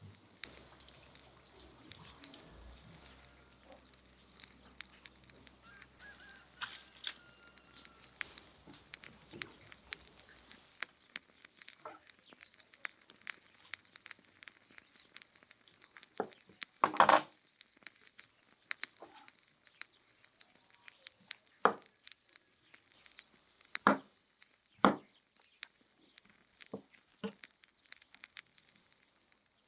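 A knife cutting through clusters of oyster mushrooms on a wooden cutting board: soft tearing and scraping, with irregular sharp knocks as the blade hits the board, a few of them much louder.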